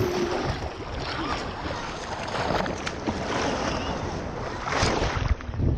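Ocean surf rushing and churning, with wind on the microphone; a louder surge of breaking water comes near the end.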